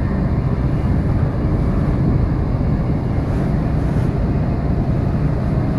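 Passenger train running, heard from inside the carriage: a steady, even low rumble of wheels on track.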